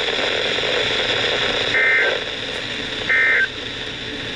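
Two short, identical bursts of Emergency Alert System SAME digital data tones, warbling between two high pitches, come over a steady radio static hiss, about a second and a half apart. Their shortness fits the end-of-message bursts that close an alert.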